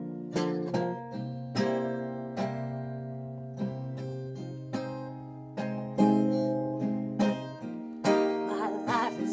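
Acoustic guitar played slowly, a chord struck about once a second and left to ring and fade. A short wavering vocal sound comes in near the end.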